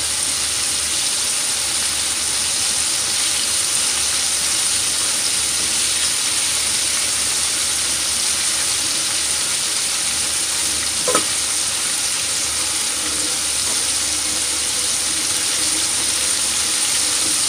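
Floured chicken pieces (karaage) frying in hot oil in a frying pan: a steady sizzle as chopsticks turn the pieces, with one short click about eleven seconds in.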